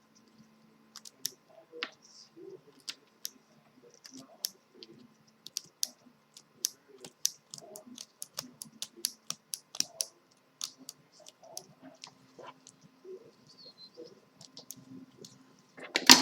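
Scissors snipping the frayed ends of braided cable sleeving on a speaker wire: a long run of small, sharp, irregular clicks as the blades close, about one to three a second.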